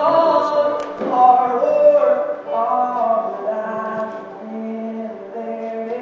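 Choir singing a slow melody in long held notes, loudest in the first two seconds and then softer.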